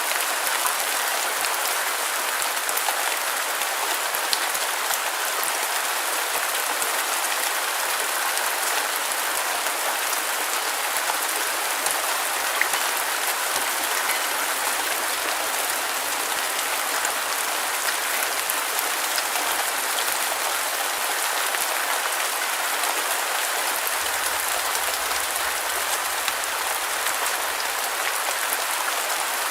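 Steady, even rain falling on a surface, a dense hiss of countless drops with fine patters and no let-up.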